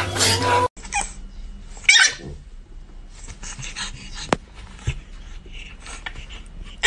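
A young French bulldog puppy whimpering: two high whines that fall in pitch, about two seconds in and again at the end, with a few faint clicks between.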